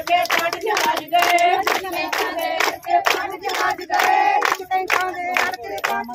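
Group of Punjabi women singing a boli refrain together for giddha, with rhythmic hand clapping about three claps a second.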